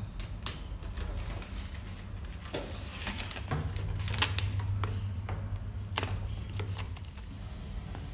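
Aluminium foil flexible duct crinkling and the plastic outlet collar of a range hood clicking as the duct is pushed and fitted over it: a string of irregular clicks and crackles, the sharpest about four seconds in.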